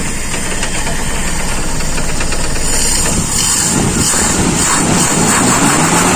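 Toyota Kijang's carbureted four-cylinder petrol engine running steadily, now running normally: its misfire and heavy shaking were cured by closing off an open PCV/vacuum line.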